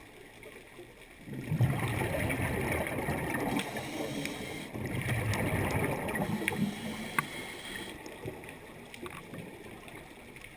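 Scuba regulator exhaust bubbles as a diver breathes out underwater: two long bubbling exhalations, the first starting about a second in and lasting some three seconds, the second following just after for about two. Then a quieter hiss with a few faint clicks.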